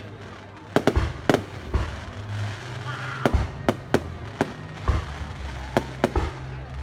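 Fireworks display: aerial shells bursting with sharp bangs at irregular intervals, about a dozen in all, over a continuous low rumble.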